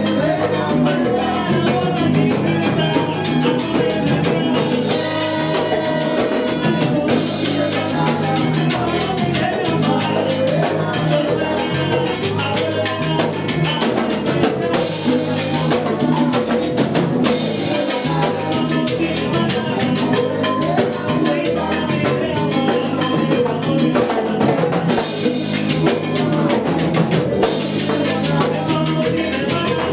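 Salsa orchestra playing an instrumental passage, driven by drum kit and percussion, at a steady loud level.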